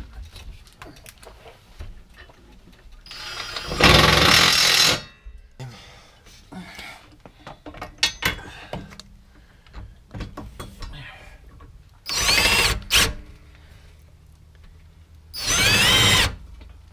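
Cordless impact tool driving the bolts of a rear cradle brace into a car's subframe, in three runs: a long one about four seconds in, a shorter one past twelve seconds with a quick blip after it, and another near the end, the motor pitch rising and falling within each run. Small clicks and knocks of tool handling fall between the runs.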